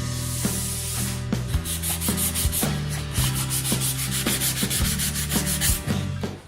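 Hand sanding of a primed metal panel with sandpaper: rapid, even back-and-forth rasping strokes, a light scuff-sanding of the first primer coat before a second coat. The sound cuts off abruptly near the end.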